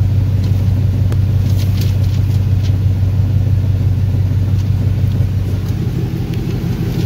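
Swapped GM V8 engine of a G-body El Camino idling with a steady deep rumble, heard from inside the cab, with a few faint clicks over it.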